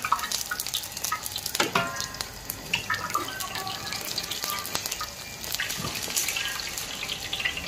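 Hot oil ladled slowly over pork belly skin, running off in a steady sizzle with dense crackling pops as the skin puffs and crisps, and a couple of brief metallic clinks.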